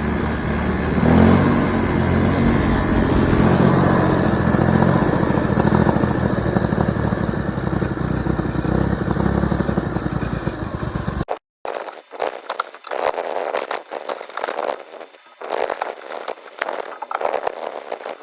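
Engine of a Miller engine-driven welder running steadily, then cut off abruptly about eleven seconds in, after which there are only quieter irregular clicks and knocks.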